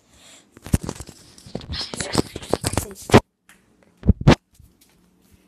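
Handling noise from a handheld phone: fingers and fabric rubbing and knocking on the microphone as the phone is swung about, in a dense run of scrapes, then two loud bumps about four seconds in.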